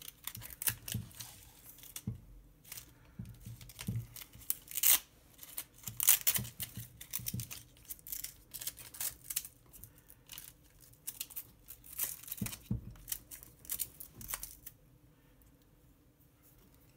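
Hook-and-loop battery strap pulled and pressed down over a stick battery pack as it is seated in an RC crawler's battery tray, with irregular rustling and sharp plastic clicks. The handling stops a couple of seconds before the end, leaving faint room tone.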